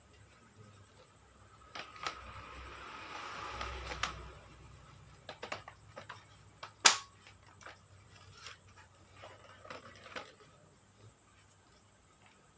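Handling noises: scattered light clicks and knocks, a rustling swell about two to four seconds in, and one sharp click a little before seven seconds.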